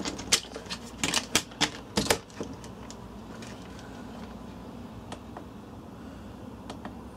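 Plastic clicks and knocks as a mains plug and plastic smart-plug housings are handled and pulled apart, a quick run of them in the first couple of seconds. After that only a few faint ticks over a low steady hum.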